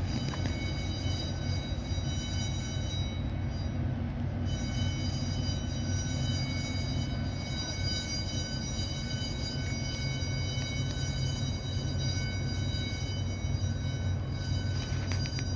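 Steady, unbroken low mechanical rumble with a constant thin high whine above it.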